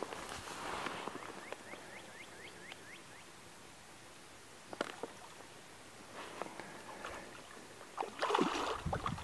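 Quiet rod-and-reel handling and light water movement from a float tub while fishing. A little over a second in, a bird gives a quick run of about ten chirps. A louder splashing burst comes near the end.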